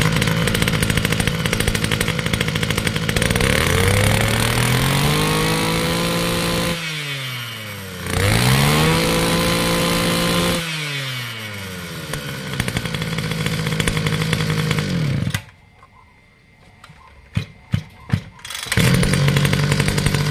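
Komatsu Zenoah G3K brush-cutter engine, a 33 cc two-stroke, running after a pull start. It is revved up twice, each time rising and then falling back to idle. About three quarters of the way through it stops, and after a short pause with a few clicks it starts again and runs.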